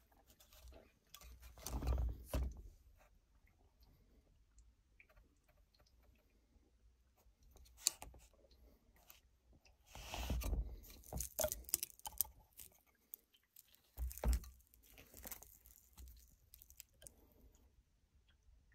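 Faint handling noise: scattered rustles, crunches and small clicks in a few short bursts as a small drone and its parts are handled on a workbench.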